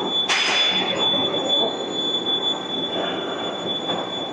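Machine-shop running noise: a steady high-pitched whine over a constant machinery hum, with a brief hiss about a third of a second in.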